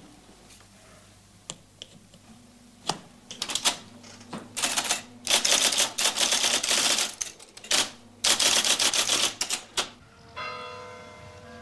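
A typewriter being typed on: a few scattered keystrokes, then fast runs of clacking keys broken by short pauses. About ten seconds in, the typing stops and a bell starts ringing.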